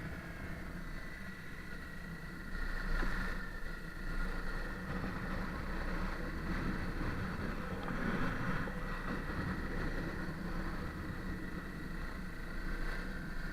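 Honda CRF250L's single-cylinder four-stroke engine running as the motorcycle rides along, its pitch rising and falling with the throttle.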